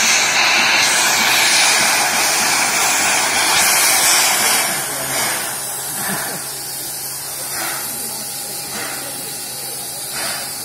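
Steam locomotive 3801, a NSW C38-class Pacific, blowing off steam from the top of its boiler with a loud, steady hiss that eases about halfway through. After that come short hissing bursts roughly a second apart.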